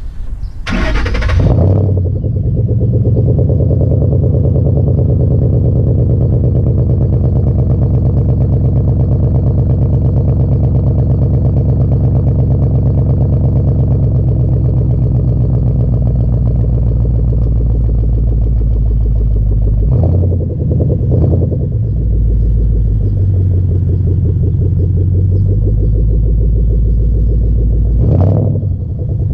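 2012 Ford Mustang GT's 5.0 Coyote V8 heard right at the tailpipe through Flowmaster Outlaw axle-back mufflers. It cranks and fires about a second in with a sharp burst, then settles into a steady, deep idle. Two quick throttle blips come about two-thirds of the way through and another rev near the end.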